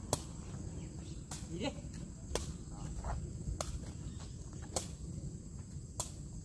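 A takraw ball being kicked around a circle of players: a sharp pop with each kick, six kicks a little more than a second apart.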